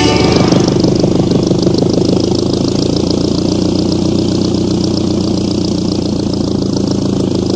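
Propeller aircraft engine running steadily, a constant drone with a fast, even pulse.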